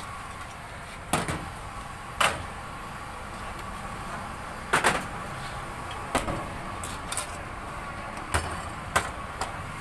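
Tins and a glass bottle knocking and clinking on a stainless-steel counter as drinks are prepared: about eight sharp clacks spread unevenly, two in quick succession near the middle, over steady background noise.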